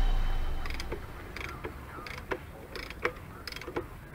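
Background music fading out in the first second, then a series of light, irregular clicks, about two or three a second.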